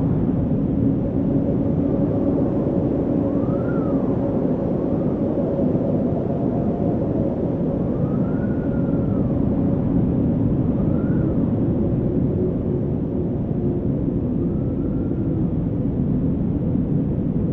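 Wind blowing on the microphone, a steady low rumble with a hum held under it. About every three to five seconds a faint tone rises and falls.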